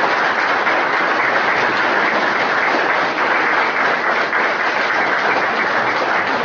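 Audience applauding steadily: many people clapping their hands at once.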